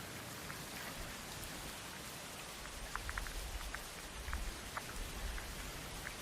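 Heavy rain falling steadily, with scattered sharp drip ticks. A low rumble rises under it about three seconds in and fades about two seconds later.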